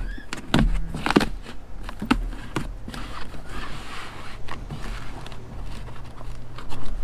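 Knocks and scraping as a lithium battery is handled and set into a battery box: several sharp knocks in the first few seconds, then a stretch of rustling and scraping.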